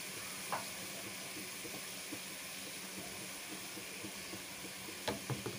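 Meat and whole spices frying in oil in an aluminium pressure cooker: a steady low sizzle, with a few light clinks of a metal skimmer against the pot about half a second in and near the end.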